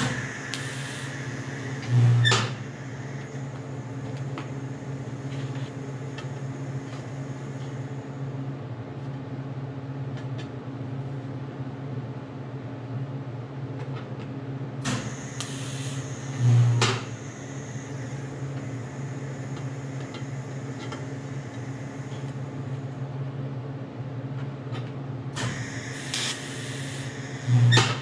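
TIG welder tacking stainless steel sheet: a steady electrical hum from the welding set, with three short, louder buzzes of the arc, about two seconds in, past the middle, and near the end.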